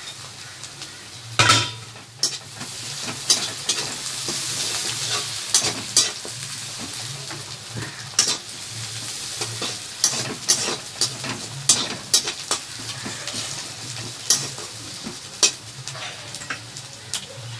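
Chopped onions, garlic and ginger sizzling in hot mustard oil in a pan while being stirred, the utensil clicking and scraping against the pan many times, with one sharper knock about one and a half seconds in.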